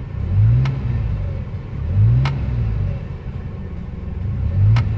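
DeLorean DMC-12's PRV V6 engine, fitted with a non-factory exhaust, blipped three times from idle: each time the engine note rises quickly and falls back to idle, heard from inside the cabin. A faint click comes with each blip.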